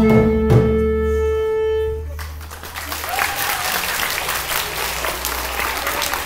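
A piece of music ends on a long held note about two seconds in, and then a crowd of children applauds, with a few scattered voices calling out.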